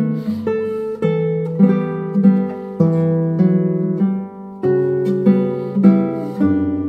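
Instrumental background music on a plucked acoustic guitar, notes and chords struck about every half second and left to ring.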